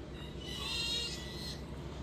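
A single high-pitched bird call lasting about a second, over a steady low hum.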